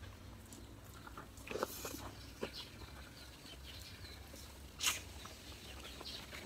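Quiet eating by hand and chewing: a few small clicks and smacks, with one louder short smack just before five seconds in.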